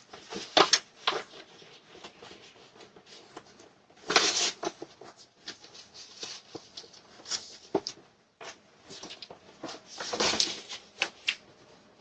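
Irregular rustling and clattering handling noises with scattered sharp clicks and knocks. The loudest rustles come about half a second in, around four seconds and around ten seconds.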